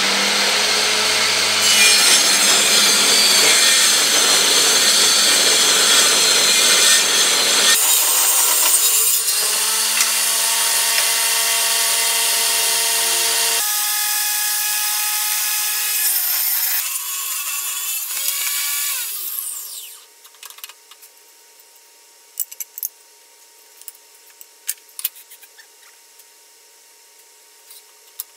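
Benchtop table saw running and ripping walnut and red oak boards, a loud steady cutting noise with a whine from the blade. About twenty seconds in, the saw is switched off and the blade winds down with a falling pitch, followed by scattered knocks of boards being handled.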